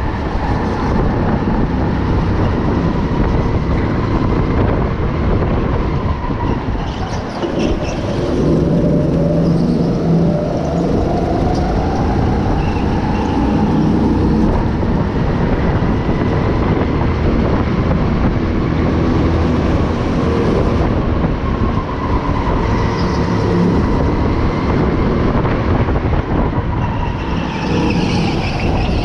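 Go-kart engine running at speed, heard from on board, its pitch rising and falling as the kart speeds up on the straights and slows into the corners.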